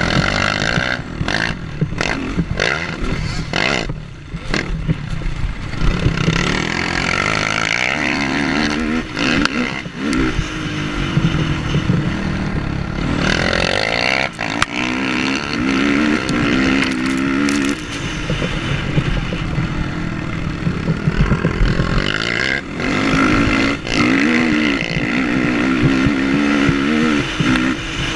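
Sport quad engines racing on a dirt track. The rider's own engine, heard close up, revs up and drops back again and again through the corners, with the quad ahead also running.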